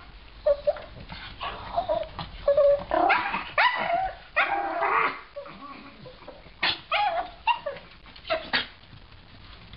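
A dog yipping and barking in short pitched calls, thick and fast through the first half, then a few sharp yips later on.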